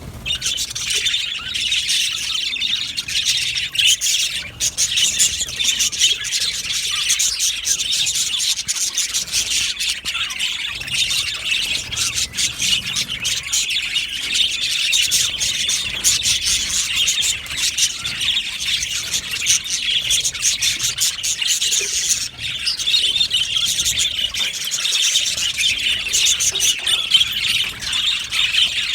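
A flock of budgerigars chattering continuously, many overlapping chirps, warbles and squawks at once.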